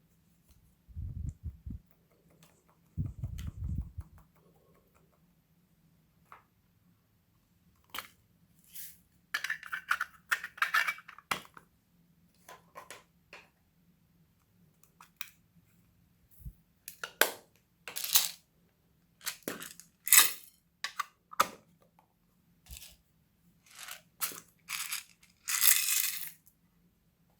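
Slime being handled and mixed by hand: scattered sticky clicks, pops and crackles that come thicker in the second half. Two low dull thuds come in the first few seconds.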